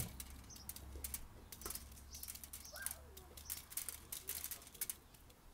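Irregular light clicks and ticks of desiccant granules being tapped and scraped out of an aluminium spacer bar onto a foil tray. The desiccant is damp, so it comes out reluctantly in small bits.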